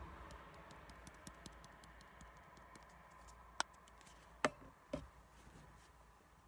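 Seasoning shaken from a shaker over a pot of cooked buckwheat: faint ticking and pattering, with three sharper clicks between about three and a half and five seconds in.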